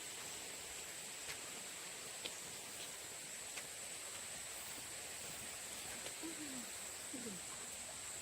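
Faint outdoor ambience: an even hiss with a steady high-pitched whine, a few light clicks, and two brief falling sounds in the second half.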